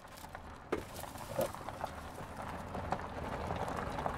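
6 mm steel reinforcing bar knocking and clinking against a homemade stirrup bender as foundation stirrup frames are bent by hand. A few sharp, irregular knocks sound over steady low background noise.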